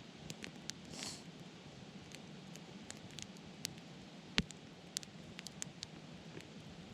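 Wood fire burning with irregular crackles and pops, one louder pop a little past the middle, and a short hiss about a second in.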